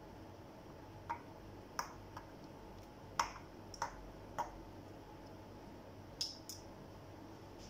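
Metal fork and knife clinking against a bowl as chicken pieces are turned in beaten egg: about eight sharp clinks at irregular intervals.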